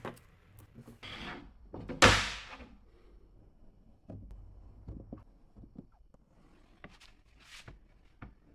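A loud thump about two seconds in, followed by scattered lighter knocks and clunks and two short hissing swishes near the end, like objects being handled and set down.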